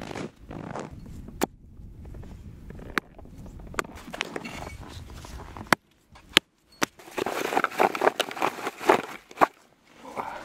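A hatchet chopping frozen meat on a wooden stump: a few sharp blows about halfway through, then a quick run of crunching chops. Before that, a low steady noise with a few isolated clicks.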